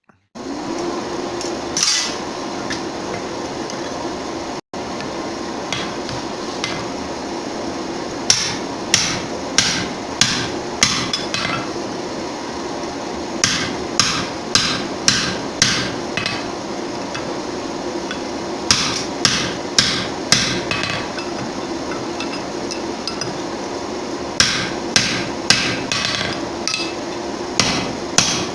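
Hand hammer striking hot steel on an anvil while forging a punch: runs of sharp blows, about two a second, in groups of five to eight with pauses between, over a steady background noise.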